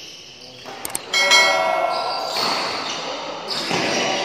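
Two sharp clicks, then a bright bell chime that starts suddenly about a second in and rings out for about a second: the click-and-bell sound effect of a subscribe-button overlay.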